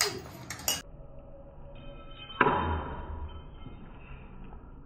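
Metal serving spoon knocking against a steel pan while potato curry is dished out: a couple of quick clicks at the start, then a louder knock about two and a half seconds in that fades away.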